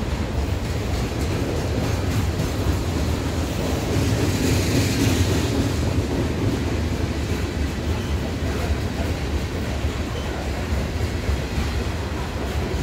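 A slow-moving freight train's cars rolling past: a steady low rumble of steel wheels on rail, swelling slightly and brightening about five seconds in.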